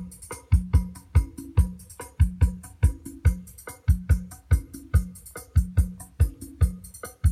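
Dance music with a heavy kick drum and bass line played loudly through a large outdoor PA system with THAM 15 subwoofer cabinets; the kick lands steadily about every half second over a repeating bass note.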